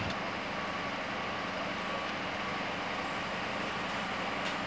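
An ambulance's engine idling steadily with a constant low hum.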